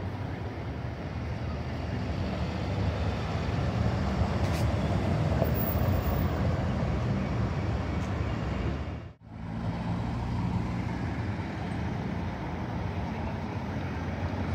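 Bus engine running amid road traffic noise. About nine seconds in, the sound cuts out for a moment, then carries on.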